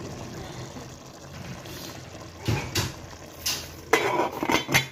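Pulao rice and vegetables bubbling in their cooking water in the pot, then a few metal clanks and a quick clatter near the end as a steel lid is handled and set on the pot.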